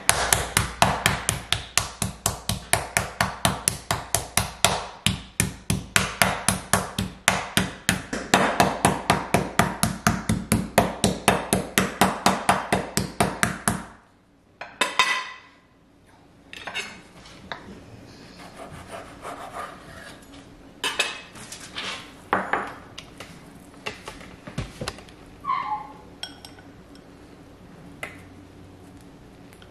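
Meat mallet pounding a pork cutlet flat on a bamboo cutting board, an even run of blows about four a second that stops abruptly about fourteen seconds in. After that, scattered soft knocks and one short clink of a dish as the thin meat is handled.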